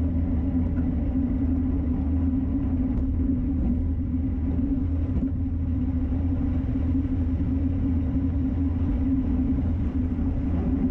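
Steady low wind rumble on the microphone of a camera riding along behind a time-trial bicycle at speed, with road and tyre noise underneath.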